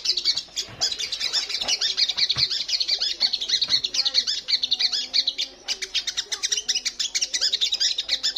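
Olive-backed sunbird (sogon) singing a fast, high, twittering song of rapid notes, almost without a break.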